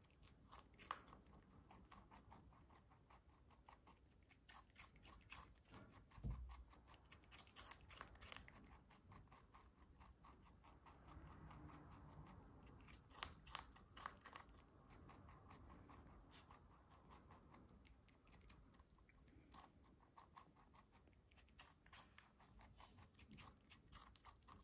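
Lop rabbit biting and chewing a raw cucumber: a quiet, continuous run of small crisp crunches, with a few louder bites in clusters.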